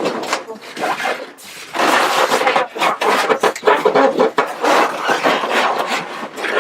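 Styrofoam packing and plastic wrapping rubbing, scraping and rustling as a sewing machine is pulled out of its box, with a brief lull a little over a second in.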